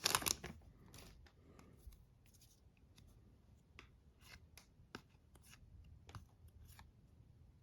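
Hockey trading cards being handled and slid through a stack: a rustle that dies away in the first half second, then faint scattered flicks and rubs of card stock.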